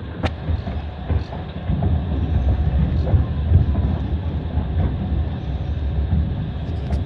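Passenger train running on the Trans-Siberian line, heard from inside the carriage: a steady low rumble of wheels on the rails, with a sharp click near the start.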